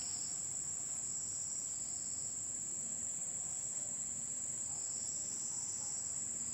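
Steady high-pitched insect chorus, swelling and fading a little, over low room hiss.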